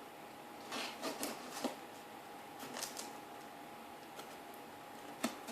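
A cardboard package being handled and opened by hand: scattered light rustles and sharp clicks, one short scraping rustle about a second in.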